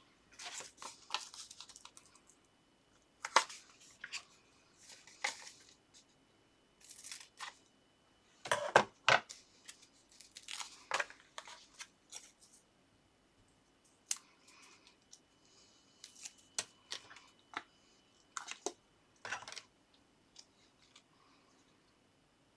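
Paper and card being handled and worked on a craft desk: intermittent rustling and short tearing sounds with a few light taps, the loudest a little under nine seconds in.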